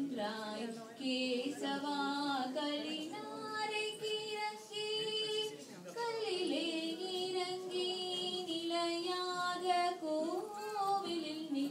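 A woman and young girls singing a Tamil devotional song together, unaccompanied by any clear instrument, with long held notes that waver in pitch and brief breaks between phrases.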